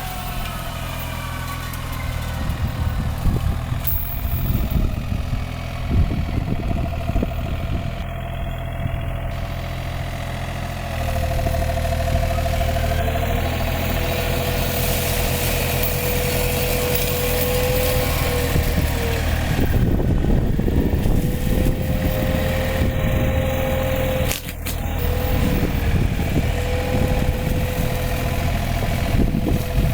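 Excavator-mounted hydraulic mulcher at work: the machine's engine runs steadily under a whining rotor, with dense crackling as brush is shredded. The sound changes abruptly twice, at about 11 and 24 seconds in.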